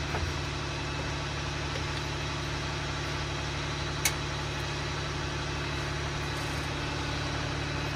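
Engine idling with a steady, even hum, and one sharp click about four seconds in.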